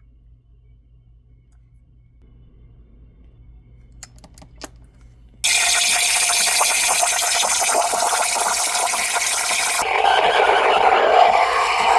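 A few clicks, then the Breville Barista Express espresso machine starts with a sudden loud, steady rushing noise about five seconds in, which turns duller and lower about ten seconds in.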